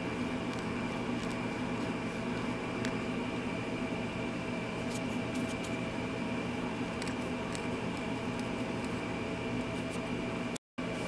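A steady machine hum carries on throughout, with a few faint scratches and clicks from a fingernail scraping crumbling, degraded plastic residue off a nut driver's handle. The sound drops out for a moment near the end.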